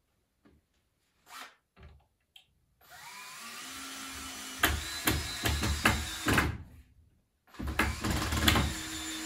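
Cordless drill-driver driving screws into a wooden frame: a few small handling clicks, then the motor whines up about three seconds in and gets louder with sharp knocks as the screw bites, stops, and runs again for the last couple of seconds.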